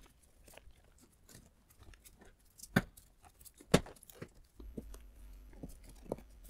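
Hard plastic parts clicking and knocking as a BMW 1 Series cabin filter housing carrier is hooked under and slid into place, with two sharper knocks about three and four seconds in and quieter scraping and handling noise between.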